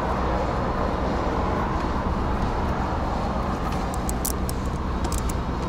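A steady low vehicle rumble. From about four seconds in, a hand socket ratchet clicks quickly, several clicks a second, as a bolt is turned.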